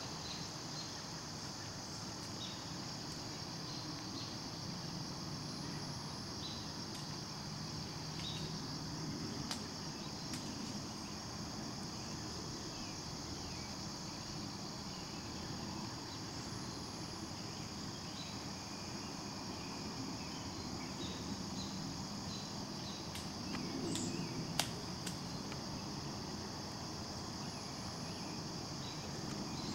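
Steady shrill chorus of insects in the woods, with faint scattered ticks and a little low rustling, and one sharp click about 25 seconds in.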